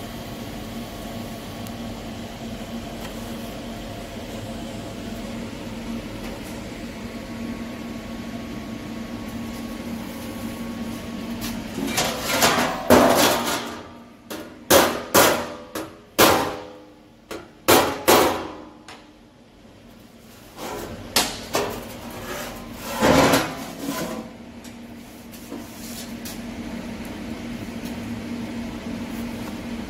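Hammer blows on a sheet-steel inner fender being worked into shape, a run of sharp ringing metallic strikes, some in quick pairs, starting about twelve seconds in and ending about twenty-four seconds in. A steady shop hum runs before and after them.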